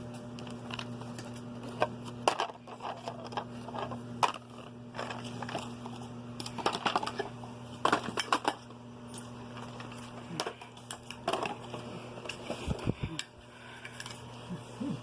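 Small plastic toy food pieces clicking and knocking against each other and a hard surface as they are handled, in irregular taps, over a steady low hum.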